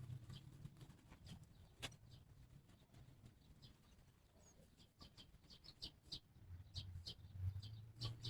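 Near silence, with a few soft clicks and a run of faint, short, high-pitched chirps or squeaks from about the middle onward. A low hum comes in near the end.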